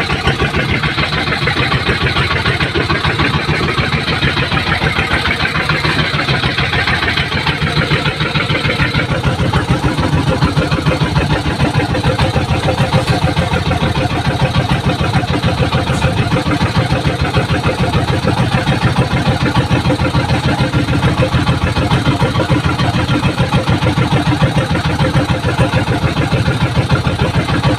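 Small fishing boat's engine running steadily with a fast, even chugging, a hiss riding over it for the first nine seconds or so.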